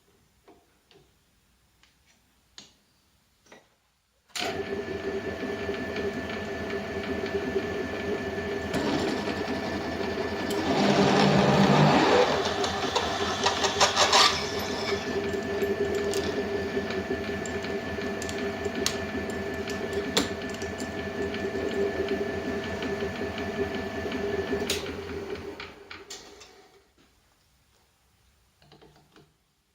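Homemade belt sander switched on about four seconds in, its electric motor and belt running with a steady hum, louder and rougher for a few seconds in the middle, then switched off and spinning down near the end.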